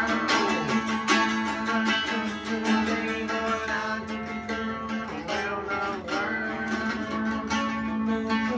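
Hollow-body electric guitar strummed in a steady rhythm, its chords ringing in a tiled bathroom.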